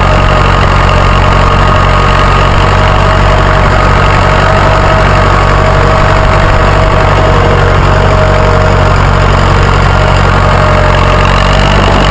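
Massey Ferguson tractor's engine running steadily as the tractor drives along, a low drone with a steady whine over it.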